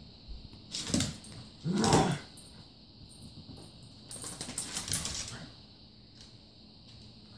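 Dogs playing: short play vocalisations, the loudest about two seconds in. Around four to five seconds in comes a flurry of claws clicking and scuffling on a hardwood floor.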